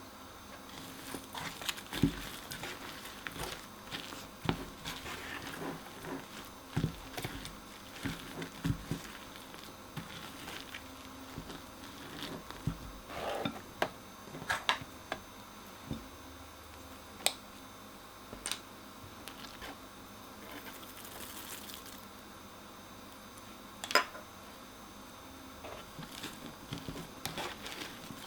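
Crunchy slime being worked by hand: irregular crackling, squishing and small pops, with two sharper, louder snaps, one about two seconds in and one near the end.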